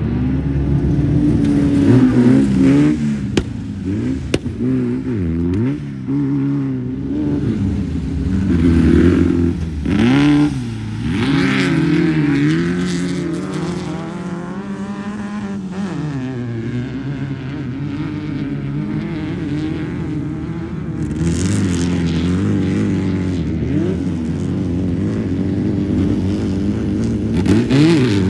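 Class 11 Volkswagen Beetle race car's air-cooled flat-four engine, revving up and down with a pitch that rises and falls repeatedly, swelling loudest a couple of seconds in, around the middle, and at the very end.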